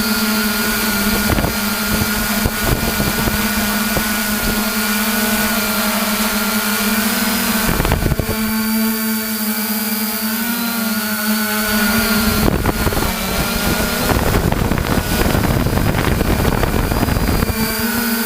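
Quadcopter drone's propellers and motors humming steadily on a single pitch, with the pitch wavering slightly as it manoeuvres. Wind buffets the microphone briefly about 8 seconds in and again for several seconds near the end.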